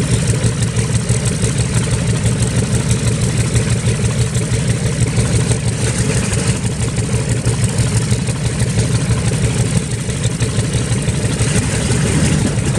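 B-25 bomber's Wright R-2600 twin-row radial engines running steadily, with a fast, rough, even pulsing.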